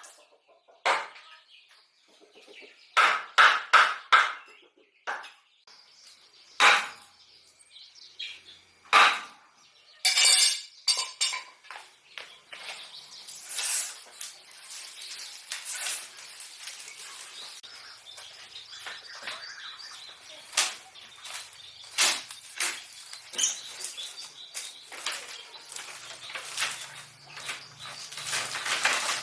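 A series of sharp knocks, irregularly spaced, with a close cluster about three seconds in. About halfway through they give way to a busy, continuous run of light clicks and rustling.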